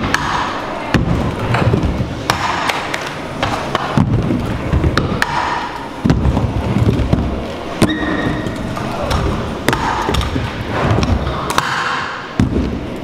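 Kick scooter wheels rolling on a wooden mini ramp, rumbling in swells on each pass, with sharp clacks and thuds from the deck and wheels hitting the plywood. Partway through the rider falls and the scooter clatters loose.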